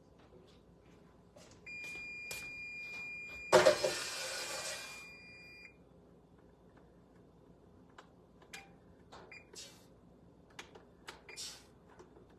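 An electronic beep: one steady high tone held for about four seconds. Partway through, a louder burst of noise lasting over a second covers it. After that come scattered light clicks and knocks.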